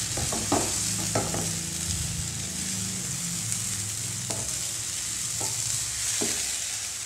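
Wooden spatula stirring and turning cooked semolina upma in a nonstick frying pan, with several short scrapes and knocks of the spatula against the pan over a steady hiss of the pan cooking on low flame. A low hum runs under the first four seconds or so.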